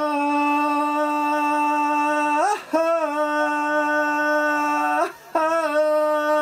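A man's singing voice holding long, loud wordless notes on an open vowel. There are three sustained notes, each begun with a quick slide up in pitch, with brief breaths between them about two and a half and five seconds in.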